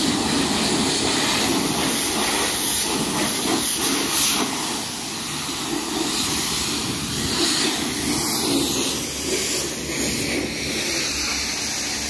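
Pressure-washer lance spraying a jet of water onto a car's bodywork and wheels: a steady, loud hiss of spray with little change.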